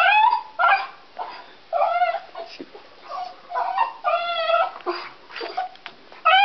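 A dog whining and yelping: a string of short, high, wavering cries with brief gaps, and a longer drawn-out whine about four seconds in.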